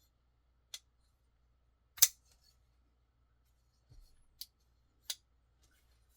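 Curtiss F3 Medium Wharny folding knife's blade being swung open and shut on its freshly adjusted pivot, giving four sharp metallic clicks, the second much the loudest.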